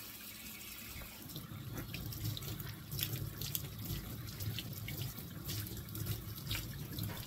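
Kitchen tap running into the sink, water splashing over poblano chilies being rinsed under it, with a few light clicks.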